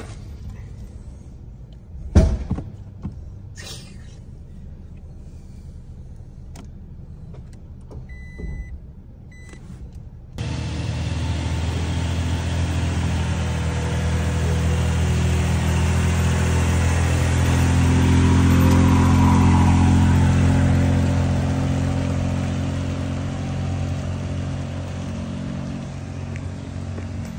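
Toyota Tacoma pickup towing a heavily loaded dump trailer up a hill, its engine labouring under the load: it swells to its loudest as the truck passes and then fades as it pulls away up the grade. Before that, a quieter hum inside the cab with a thump about two seconds in and a few short beeps, then a sudden jump to the louder engine about ten seconds in.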